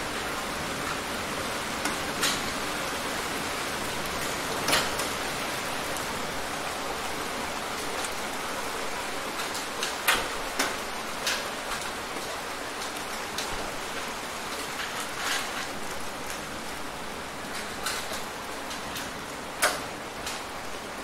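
Steady rain falling, an even hiss, with about eight sharp, louder taps of single heavy drops hitting a nearby surface scattered through it.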